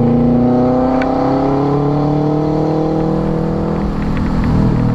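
Loud exhaust of a 2006 Subaru WRX's turbocharged flat-four, running with the muffler removed, accelerating hard. The pitch climbs steadily for about four seconds, then breaks off near the end.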